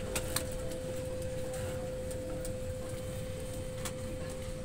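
Steady hum of an airliner cabin's ventilation on the ground, with one steady tone, broken by a few sharp clicks and knocks from luggage and overhead bins: two just after the start and one near the end.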